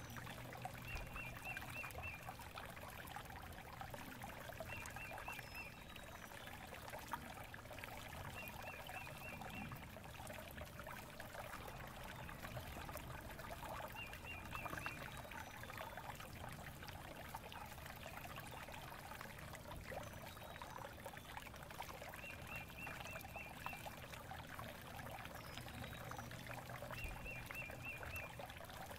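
Steady trickling water, with a short high trilling call that returns every few seconds and faint chirps.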